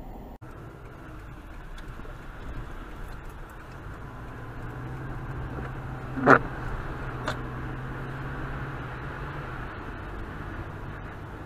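Dashcam audio from inside a car driving on a snowy road: steady road and cabin noise, then one sharp, loud impact about six seconds in as snow sprays over the hood and windshield. A fainter knock follows about a second later.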